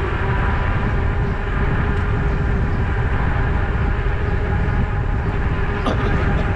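Wind buffeting an action camera's microphone on a moving e-bike, with tyres rolling on asphalt and a faint steady hum. There is a brief click near the end.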